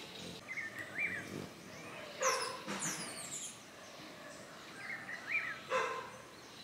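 A dog barking twice, about three and a half seconds apart, with short chirping bird calls before each bark.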